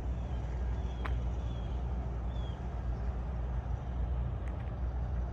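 Steady low outdoor rumble, with a couple of faint clicks and a few faint short high chirps in the first half.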